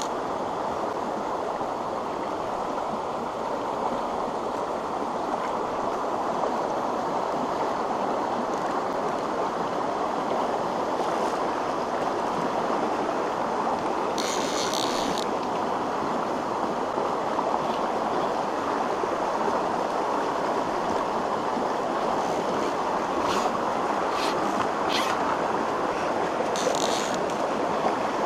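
Mountain stream running over rocks in a steady rush of water. A few brief, sharper sounds come about halfway through and again near the end.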